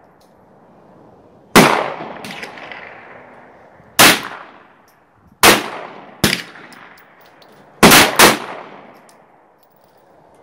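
A Ruger Mark III 22/45 .22LR pistol firing single shots: five sharp cracks, unevenly spaced one to two and a half seconds apart, the last two close together. Two fainter shots fall between them. Each crack rings out and fades under the covered firing line.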